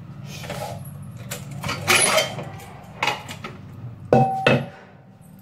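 Stainless steel pressure cooker being opened: metal clatter of the lid and handle, a short hiss of escaping steam about two seconds in, and two ringing metal clanks a little after four seconds.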